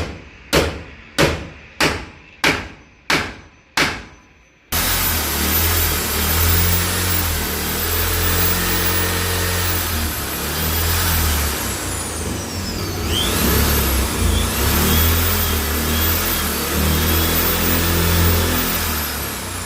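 A hammer driving a nail with about seven even blows, then an electric drill switches on abruptly and runs continuously, its motor whine falling and rising in pitch.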